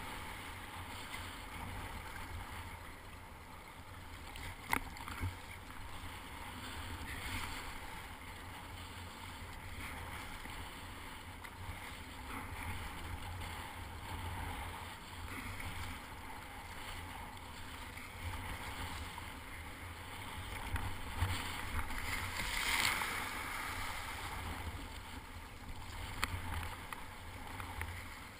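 Sea kayak being paddled through choppy water: paddle strokes and water splashing and sloshing against the hull, over a low rumble. A few sharp knocks, and a louder surge of splashing about three-quarters of the way through.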